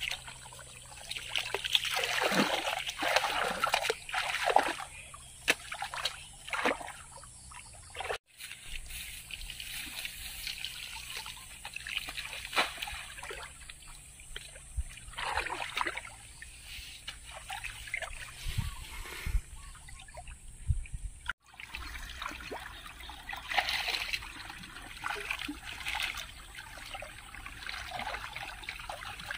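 Shallow muddy ditch water splashing, sloshing and trickling irregularly as hands grope and dig through the mud and water for fish.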